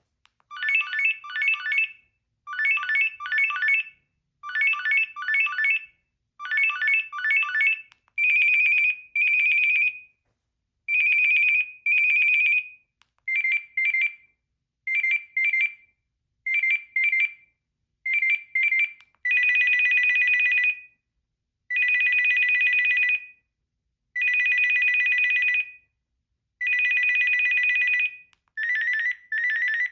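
Built-in ringtones of a Sanyo Vero mobile phone playing one after another through its small speaker. A fast trilling ring repeats four times, then come paired longer beeps, then quick triple beeps, then four long steady two-tone rings, and another short-beep pattern starts near the end.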